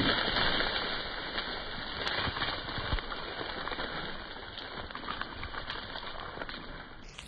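Dry bracken rustling and crackling as several dogs rush through it, growing fainter as they run off, with a few sharp clicks of snapping stems.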